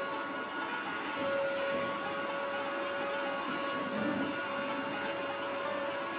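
Canister vacuum cleaner running steadily, its motor whine over the rush of air, while the hose nozzle is worked over a fabric sofa cushion.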